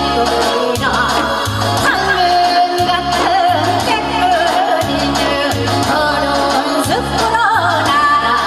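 A woman singing a Korean folk song (minyo) through a microphone and PA, her long held notes wavering with heavy vibrato, over backing music with a steady repeating bass beat and live cymbal and drum strokes.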